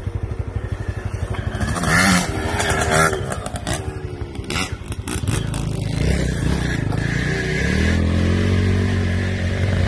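Off-road motorcycle engines revving and running on a dirt trail, with clicks and rattles over the first half. From about five seconds in, a close engine holds a steady note that climbs a little in pitch near the end.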